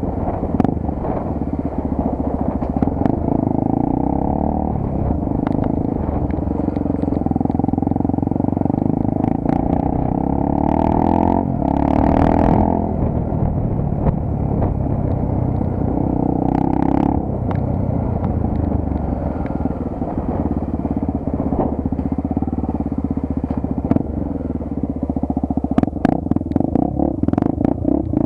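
Honda Tornado 250's single-cylinder engine running under way as the motorcycle is ridden. The engine note rises and falls several times with throttle and gear changes, with occasional short clicks.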